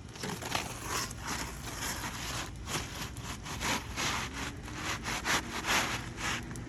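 Repeated rough, gritty scraping on asphalt shingles, about two strokes a second.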